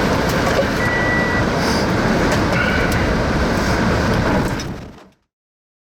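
Loud, steady rumble of wind and a moving vehicle, fading out to silence about five seconds in.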